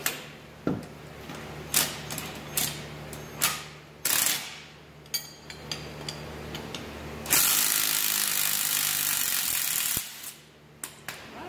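A Hart 1/2-inch cordless impact wrench hammering a bolt loose on a tractor three-point hitch lift arm, in one continuous run of nearly three seconds starting about seven seconds in. Before it come sharp clinks and knocks of steel tools and parts, and a brief burst about four seconds in.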